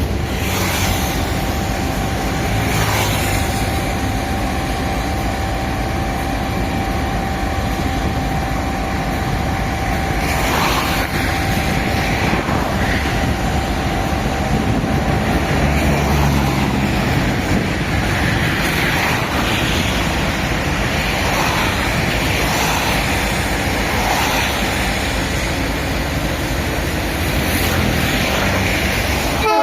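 Freight train in motion: a continuous rushing rumble, with a steady whine from about a second in until about halfway through.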